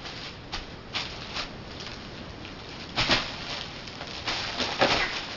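Plastic bubble wrap crinkling and snapping as it is played with: a run of short, sharp crackles, loudest about three seconds in and again near the end.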